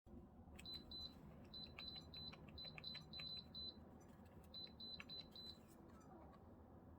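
LG LW6017R window air conditioner's control beeper giving a string of short high beeps in quick clusters, with light clicks, as its buttons are pressed. The beeping stops about five and a half seconds in.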